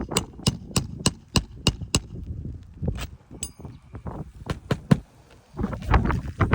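A hammer tapping a roofing nail down through an asphalt shingle: quick, even metallic strikes about three a second, with a few more spaced-out strikes after a short pause. Handling and rustling noise follows near the end.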